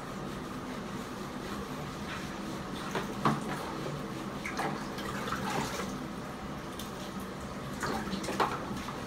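Water splashing and dripping as a soapy French bulldog is washed by hand in a sink, over a steady low hum. Two brief louder sounds stand out, about three seconds in and near the end.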